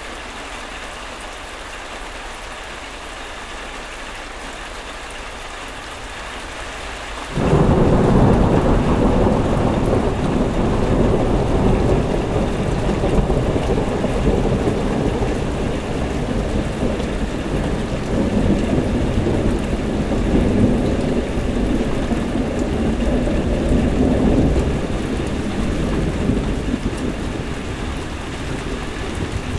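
Steady rain falling. About seven seconds in, a heavy roll of thunder breaks in suddenly and rumbles on, slowly dying away under the rain.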